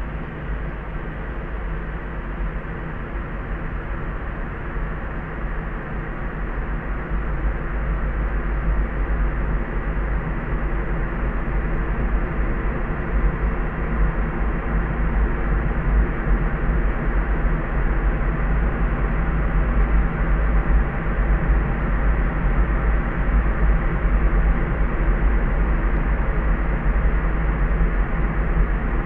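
Steady layered pink-style sleep noise: a soft, deep rumble with no high hiss. It swells slowly louder over the first two-thirds.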